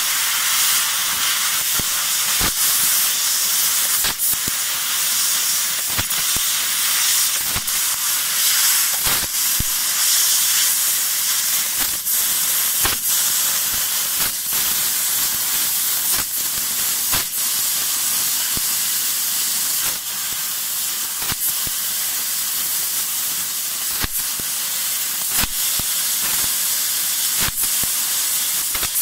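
Fiber laser cutting machine cutting 1 mm stainless steel sheet: a steady high hiss of gas jetting from the cutting nozzle, broken by short sharp clicks every one to two seconds.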